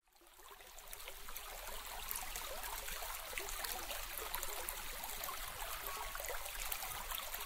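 A soft, steady trickling noise with many tiny crackles, like running water, fading in over the first second.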